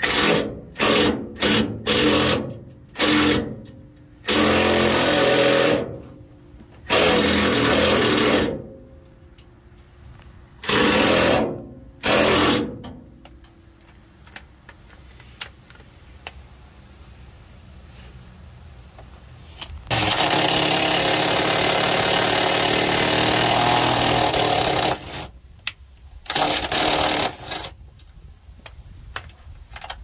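Milwaukee cordless impact driver with a 10 mm socket, run in about a dozen bursts on the van's body-to-frame ground bolt, rattling as it hammers; short triggers at first, then one long steady run of about five seconds two-thirds through. It is servicing the corroded ground strap, a common cause of an Econoline cranking but not starting.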